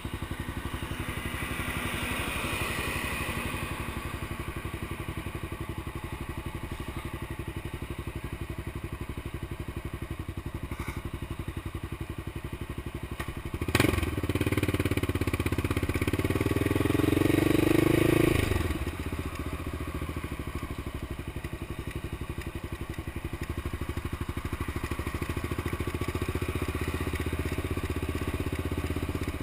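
Honda XR650L single-cylinder four-stroke engine of a street-legal three-wheeler running at low road speed. About 14 seconds in there is a sharp knock, then the engine gets louder with its pitch rising under throttle for about four seconds before it falls back to a steady run.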